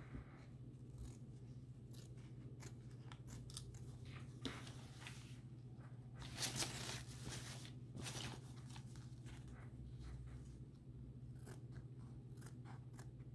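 Small embroidery scissors snipping through fabric: a run of faint, short snips, the loudest ones a little past the middle.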